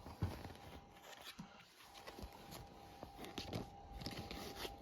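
Faint rustling and scattered soft taps of a yearbook and its clear cover being handled and paged through, over a faint steady hum.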